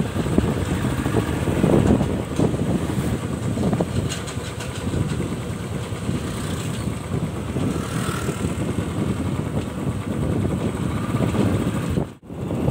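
Motorcycle running along the road, heard from on the bike: a steady, uneven engine and road rumble. The sound drops out for a moment near the end.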